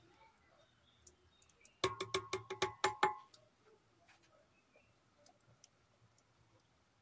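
Wooden spoon tapped rapidly against the rim of an aluminium cooking pot, about ten quick knocks in just over a second, the pot ringing with each.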